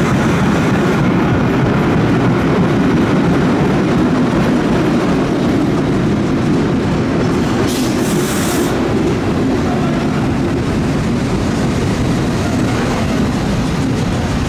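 New York City subway train running along the track: a steady, loud rumble with clacking wheels. A brief hiss about eight seconds in.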